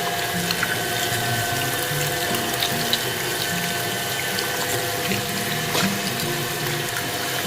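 Electric meat grinder running steadily with a whining hum and scattered crunching clicks as material goes through it, over background music with a stepping bass line.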